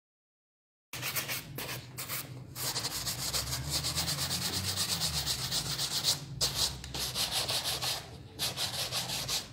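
Brisk back-and-forth rubbing strokes by hand, a quick, even scrubbing rasp that starts about a second in and pauses briefly twice.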